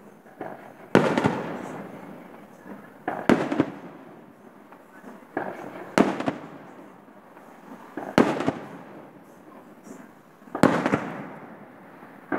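Aerial firework shells bursting in the sky one after another: five loud bangs about two to two and a half seconds apart, each followed by a rolling echo, with a few smaller cracks between them.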